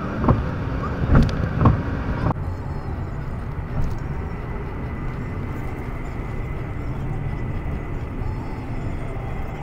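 Road and engine noise heard from inside a moving car on a highway: a steady low rumble, with a few short knocks in the first couple of seconds. About two seconds in it changes abruptly to a smoother, steadier rumble.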